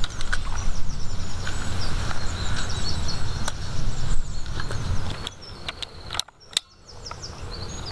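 Wind rumbling on the microphone, with small birds chirping and a few light knocks as fishing gear is handled. About six seconds in the sound drops almost to nothing for a moment, broken by a single click, then the chirping returns more faintly.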